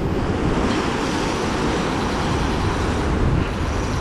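Surf breaking against the rocks below, mixed with wind buffeting the microphone: a steady, loud rushing noise.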